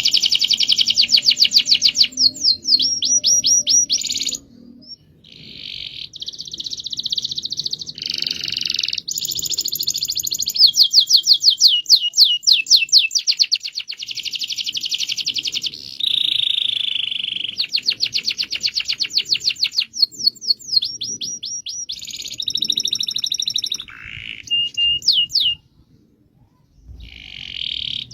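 Domestic canary singing a long rolling song of fast trills and rapid repeated notes, phrase after phrase with short breaks and a brief pause near the end.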